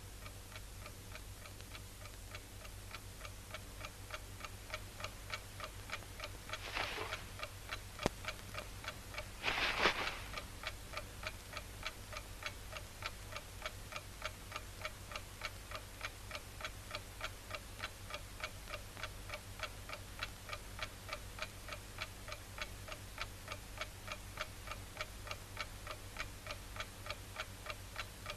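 Clock ticking steadily, about three ticks a second. About 7 and 10 seconds in it is briefly overlaid by two short rustling bursts, with a single sharp click between them.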